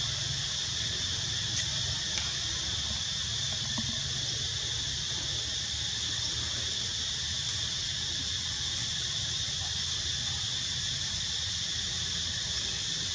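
Steady, unbroken high-pitched insect chorus, like cicadas or crickets, over a low steady rumble.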